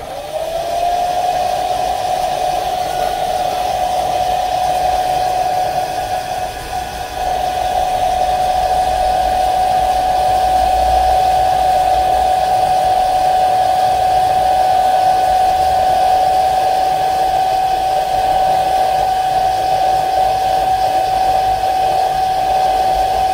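Hair dryer running to heat the double-sided tape under a phone's back cover: a steady rush of air with a steady motor whine that rises into pitch as it is switched on, briefly quieter around six seconds in.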